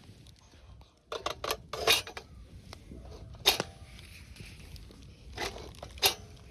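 Sharp clinks and knocks of hard objects being handled: a quick cluster about a second in, then single strikes spread over the rest, a couple with a short ringing tone like metal.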